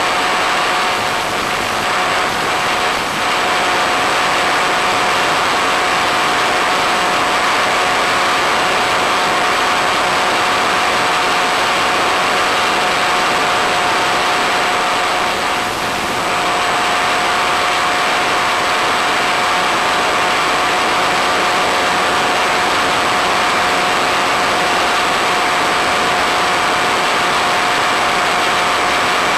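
Electric motor and pusher propeller of an Easystar RC plane running steadily in flight, a constant whine over rushing noise, with two brief dips about 3 and 16 seconds in.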